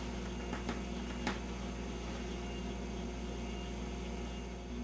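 Room tone: a steady low electrical hum under a faint hiss, with a few faint clicks in the first second and a half.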